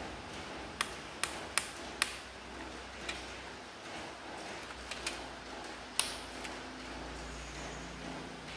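Sharp clicks and taps of a screwdriver and hands working on a laptop's plastic underside while it is taken apart. Four quick clicks come in the first two seconds, a few more follow, and the loudest comes about six seconds in.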